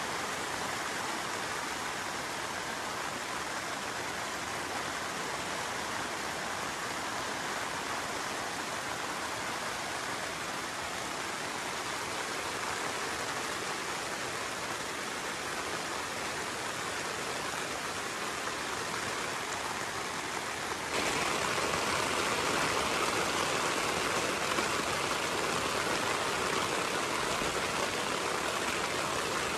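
Steady rain falling on the tent fabric and the tarp overhead, a dense even patter with no separate drops standing out. About two-thirds of the way through it suddenly turns louder and hissier.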